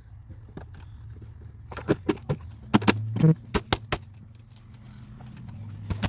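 Sharp clicks and knocks of hand tools and metal parts being handled and fitted during engine-bay reassembly, bunched together in the middle, over a steady low hum.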